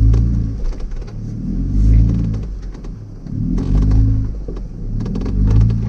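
An off-road 4x4's engine revs up and eases off in a repeating pattern, about every two seconds, with scattered clicks and knocks.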